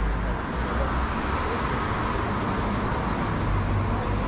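Steady city street traffic noise, with a low rumble under a continuous wash of sound.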